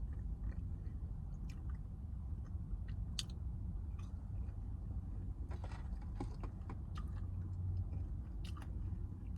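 Close-miked chewing and mouth noises of someone eating chicken strips: scattered short wet clicks and smacks over a steady low hum.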